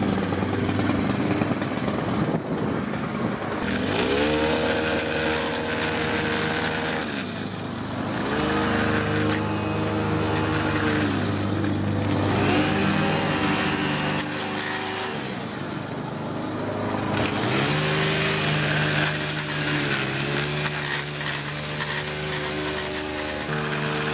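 Gas string trimmer engine running, revved up and let back down again and again every few seconds as the throttle is worked.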